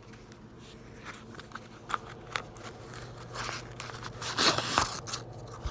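Paper crinkling and rustling with scattered small clicks and taps as a homemade paper tape measure is handled and its paper tape pulled out, busier in the second half.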